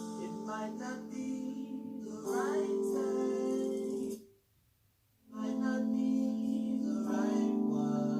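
Music with singing played back through a Sonos speaker and picked up by a microphone in the room. It cuts out for about a second around the middle, then carries on.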